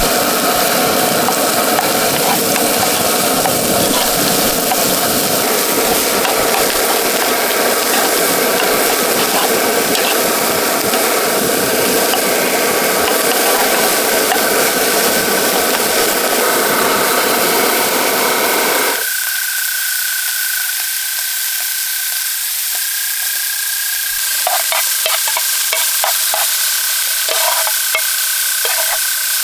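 Steak pieces sizzling in a frying pan on a canister camp stove, stirred and turned with tongs that scrape the pan. A steady low rush under the sizzle cuts off suddenly about two-thirds of the way through. The sizzle goes on, with a run of tong clicks and scrapes near the end.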